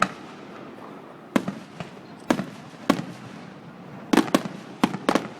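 Fireworks display shells bursting: a string of about seven sharp bangs at uneven intervals, two in quick succession a little over four seconds in.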